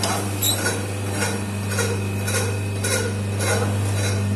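Rice roasting machine running: a steady low hum with metallic clinks repeating about three times every two seconds as the stainless-steel drum turns.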